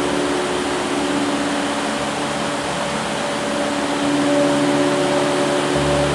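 Heavy rain falling on a corrugated metal roof and streaming off its edges: a loud, dense, steady hiss. A few faint steady low tones run underneath it.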